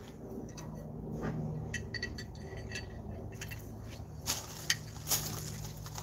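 Small handling clinks, then a few sharp footsteps crunching on gravel in the last couple of seconds, over a low steady hum.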